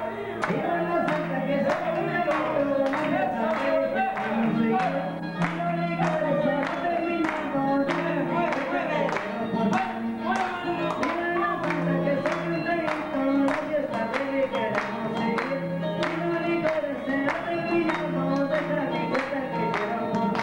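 Dance music with singing and a steady, sharp beat about twice a second.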